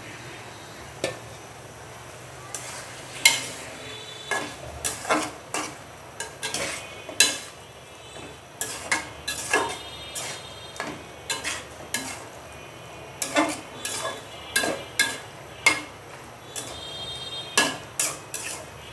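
A spoon scraping and knocking against an aluminium karahi as raw beef chunks are stirred into fried spice paste (masala). There are irregular knocks, some with a brief metallic ring, over a steady low sizzle.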